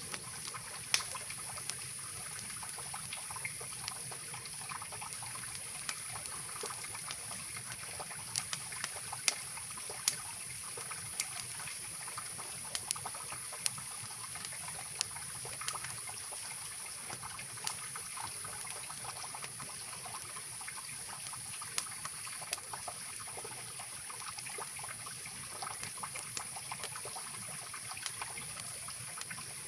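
Mountain river rushing steadily, with a campfire crackling over it: scattered sharp pops, about a dozen, the loudest about a second in and around nine and ten seconds in. A steady high hiss runs above the water sound.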